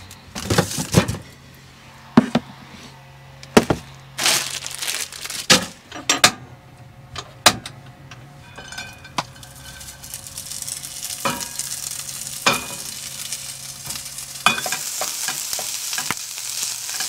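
Knocks and clicks of food containers and a frying pan being handled, then leftover birria meat and rice frying in the pan, a sizzle that builds from about halfway through as it is stirred.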